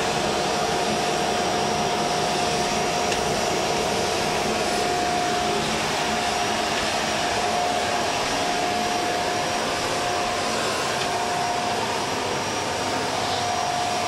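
Canister vacuum cleaner running steadily as its floor nozzle is worked over the floor: a constant rush of air with a steady whine.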